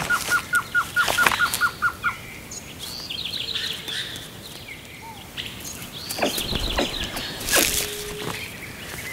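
Wild birds calling: a fast run of short falling notes, about six a second, for the first two seconds, then high rapid trills about three seconds in and again about six seconds in. A few sharp knocks sound among the calls.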